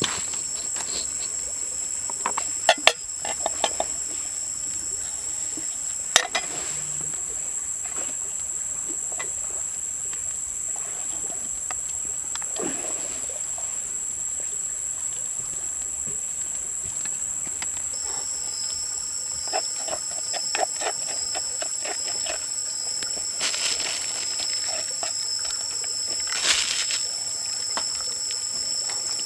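A steady high-pitched drone of insects, with a few sharp knocks and clicks as limes are handled, cut with a knife and squeezed over a wooden mortar.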